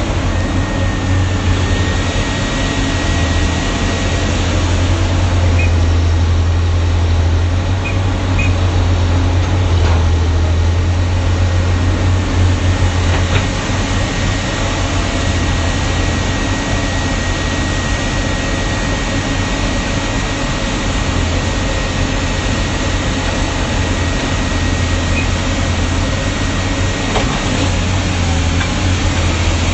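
Excavator's diesel engine running steadily with a strong low hum, a faint steady high whine above it and a few light clicks.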